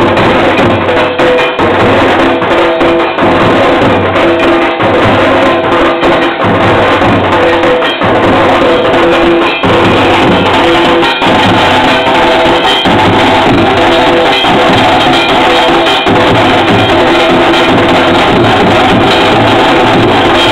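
Dhak drums beaten in a loud, dense, continuous rhythm.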